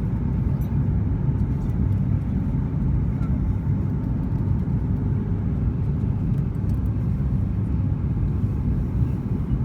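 Steady low rumble of a Boeing 737 MAX 8's twin CFM LEAP-1B engines and the airflow, heard from inside the cabin in flight.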